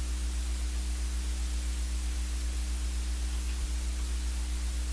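Steady low electrical hum under an even hiss: the background noise of a recording microphone with no other sound.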